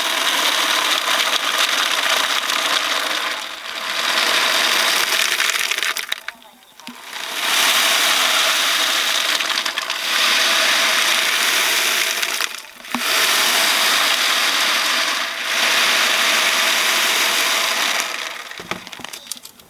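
A hand-operated sound-effect prop producing a loud rustling, pouring hiss in five long swells with short breaks between them, dying away near the end.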